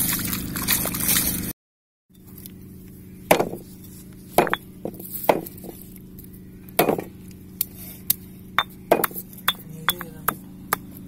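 Water poured and splashing into a stone mortar as it is rinsed by hand, cut off abruptly about a second and a half in. Then a stone pestle knocking against the stone mortar as ginger and garlic are crushed: sharp clinks of stone on stone, scattered at first, then quicker, about three a second, toward the end.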